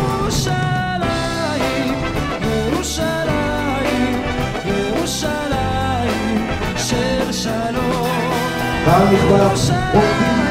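Music: a song with a voice singing over a full band with percussion.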